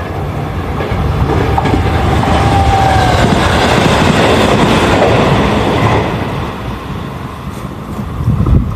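A train passing by on the Ainokaze Toyama Railway line, wheels clacking over the rail joints; it grows louder to a peak about halfway through and then fades.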